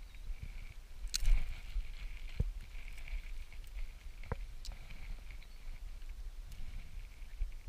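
Scattered clicks and knocks of steel fishing pliers and hand handling while a lure is worked out of a trout's mouth, the loudest about a second in, over a low rumble.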